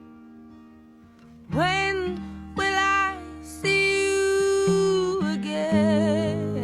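Background music: acoustic guitar chords, joined about a second and a half in by a singing voice with sliding pitch and vibrato.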